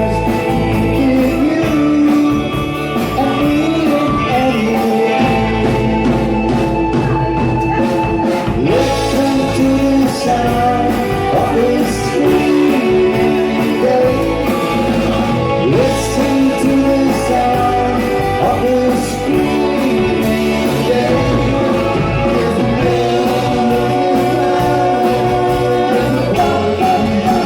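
A live 1960s-style beat band playing rock and roll: electric guitars, bass and drums, loud and continuous.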